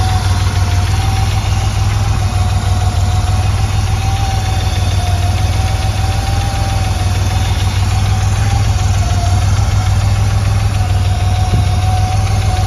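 Air-cooled, turbocharged 3.3-litre flat-six of a 1989 Porsche 911 Turbo idling steadily, with a thin steady whine over the low engine note.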